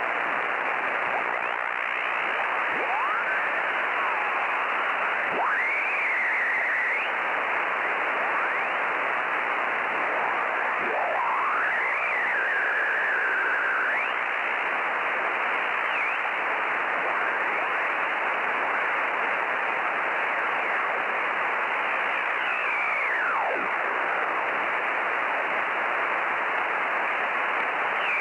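Static hiss from a shortwave ham radio receiver, with whistling tones sliding up and down through it several times.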